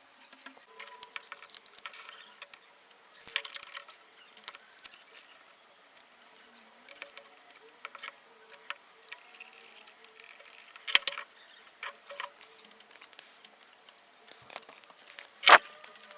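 Irregular clicks, taps and light rattles of objects being handled, with a faint steady hum underneath; a sharper click comes about eleven seconds in and the loudest near the end.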